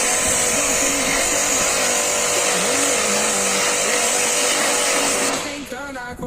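A machine running with a steady loud rushing hiss and a faint hum, of the kind made by the cleaning equipment used in air-conditioner servicing; it cuts off about five seconds in and background music with a melody takes over.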